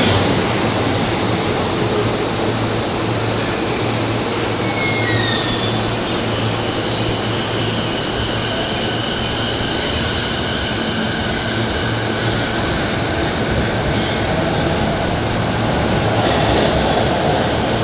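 Train running along the platform track, a steady rumble of wheels on rails with a faint high whine partway through.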